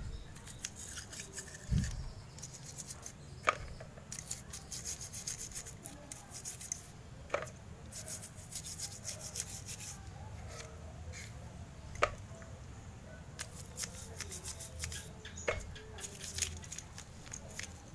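Motorcycle carburetor part being scrubbed clean in gasoline: bursts of quick scratchy rubbing strokes, with a few sharp clicks of small metal parts.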